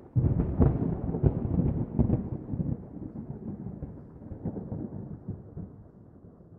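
A sound effect of a sudden deep boom that rumbles on, with a few sharp cracks in the first two seconds, then slowly dies away.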